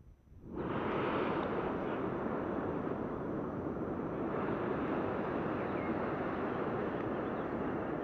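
Steady rushing noise of the Rhine Falls waterfall, cutting in abruptly about half a second in and holding even.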